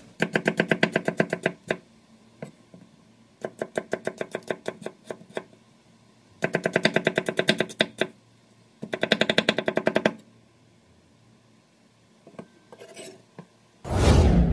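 Cleaver chopping quickly on a wooden cutting board, in four runs of about eight strokes a second with short pauses between. Near the end a sudden loud bang cuts in.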